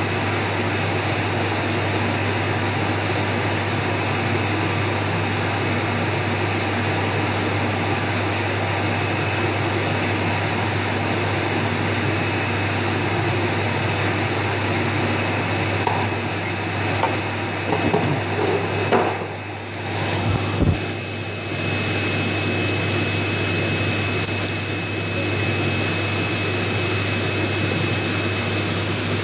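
Steady machine hum and hiss with a low drone and two constant high whines. A few knocks and a brief dip in level come a little past halfway.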